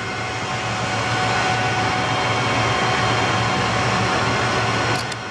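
Steady whir of server-rack and UPS cooling fans with a low electrical hum. About five seconds in, a couple of sharp clicks as the UPS battery's blue power connector is pushed home and clicks into place.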